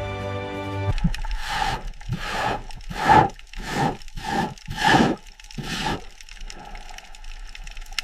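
A series of rasping scraping strokes, about two a second, starting about a second in and stopping about six seconds in. After that only a faint rough noise remains.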